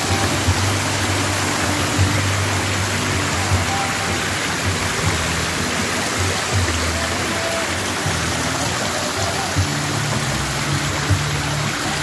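Water from an artificial rock waterfall pouring steadily into a pool, making an even rush and splash. Background music runs underneath, its low notes changing every second or two.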